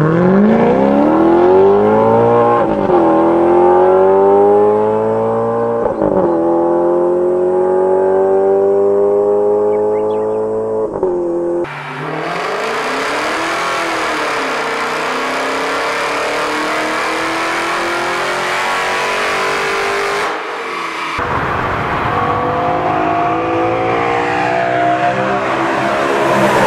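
Crossplane V8 engines at full throttle, in several clips: an Alfa Romeo F136 YC V8 revving up through the gears with upshifts about 3 and 6 seconds in, then a supercharged Dodge HEMI V8 under load on a dyno, then a BMW S65 V8 car. The uneven firing of the crossplane crank gives the V8s their burbly sound.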